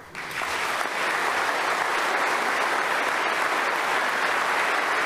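A large congregation applauding, building over about the first second and then holding steady.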